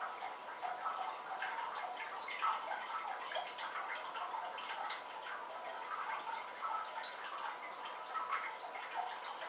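Water dripping inside a planted terrarium, many small, irregular drops falling on wood and leaves from its rain or misting system, over a faint steady high tone.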